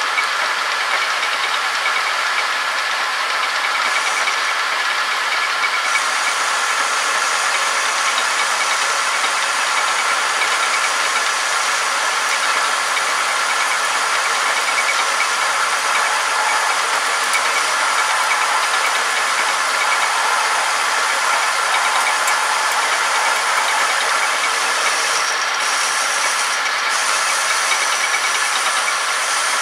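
Homemade metal-turning lathe running steadily under power, the chuck spinning a metal shaft while the cutter takes a pass along it, with a steady machine whine and cutting hiss; a higher thin tone joins about six seconds in.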